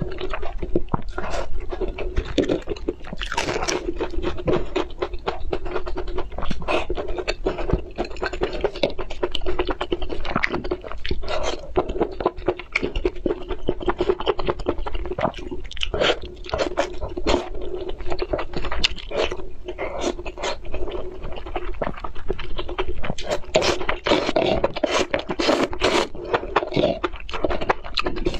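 Chewing and crunching of food, with a fork scraping and clicking against the serving tray as food is picked up.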